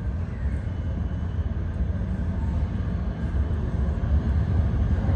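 Steady low rumble in a subway station, slowly getting louder: a subway train approaching through the tunnel.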